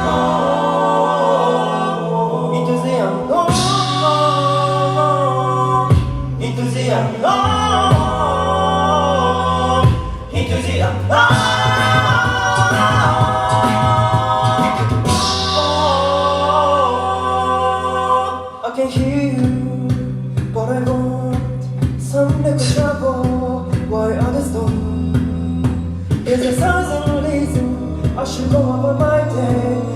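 Male a cappella ensemble singing in close harmony over a held sung bass line. About two-thirds of the way in, a steady vocal-percussion beat joins.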